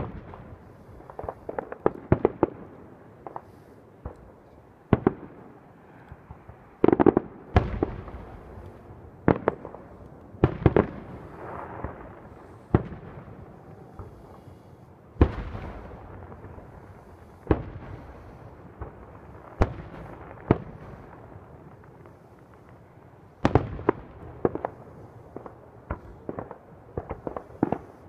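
Aerial firework shells bursting one after another at irregular intervals, each bang trailing off in an echo. A quick run of smaller pops comes near the end.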